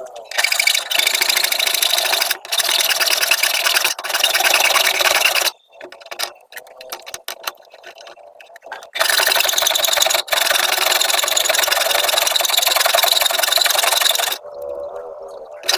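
Rasping, scraping strokes on a hard surface in two long bouts of about five seconds each, with a pause of a few seconds between them.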